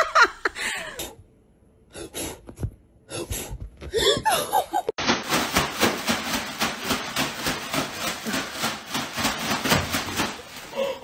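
A person laughing hard in quick, even bursts, about four a second, for some five seconds in the second half. Before that come a few short, scattered voice-like sounds.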